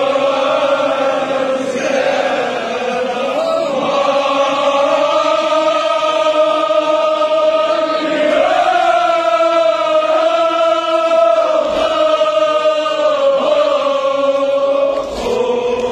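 Many men's voices chanting together in long, drawn-out held notes, a Shia mourning chant. The pitch lifts briefly a few times, and a long held note runs through the second half.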